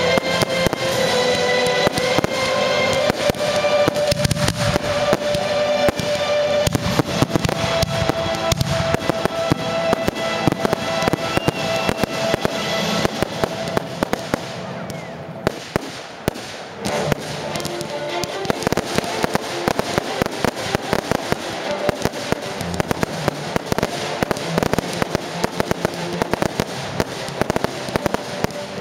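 Fireworks display firing rapidly: a dense run of bangs and crackling stars, with music playing alongside that is clearest in the first half. The firing briefly thins about halfway through, then picks up again.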